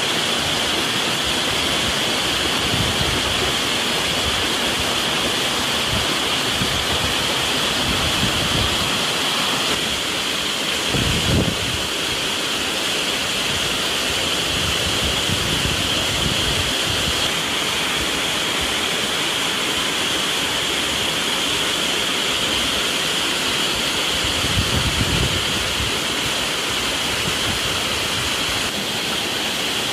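Small forest waterfall pouring steadily, an even rushing of water, with a steady high-pitched drone above it. Two brief low rumbles come about a third of the way in and again near the end.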